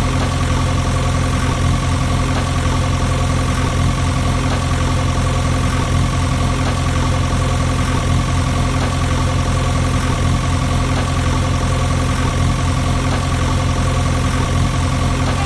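Tractor engine idling steadily, a constant heavy low running sound that holds the same speed throughout.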